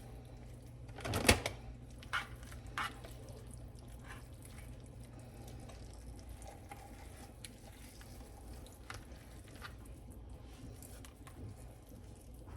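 Kitchen handling sounds: one sharp knock about a second in, a couple of lighter clicks just after, then scattered faint clicks over a low steady hum.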